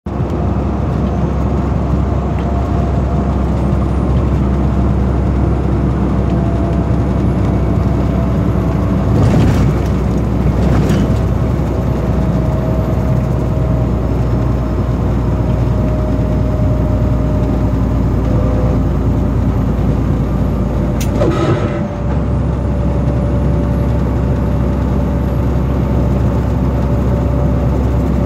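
Steady drone of a truck's engine and road noise inside the cab at highway speed, with a few short rushes of noise about a third of the way in and again about three quarters through.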